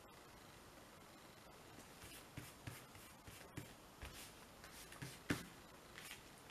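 Soft paper handling on a tabletop: light rustles and taps as a hand presses and smooths a freshly glued paper panel onto card stock, starting about two seconds in, with one sharper knock near the end.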